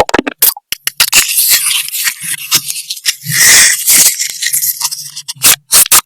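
Close-miked eating sounds: rapid crackling and clicking, as of crunchy food being bitten and chewed, with a longer, louder crunch about three and a half seconds in.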